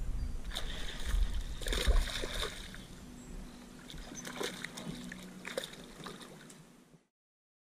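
A small hooked bass splashing and thrashing at the water's surface as it is reeled toward a boat, in irregular bursts of splashing with clicks from the rod and reel. The sound cuts off abruptly near the end.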